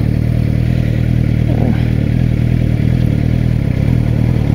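Suzuki GSX-R600 motorcycle's inline-four engine running steadily at an unchanging speed, heard from the rider's helmet.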